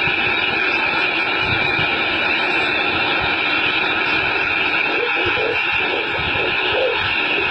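Steady, loud machinery noise: a constant rumble and hiss that holds the same level throughout.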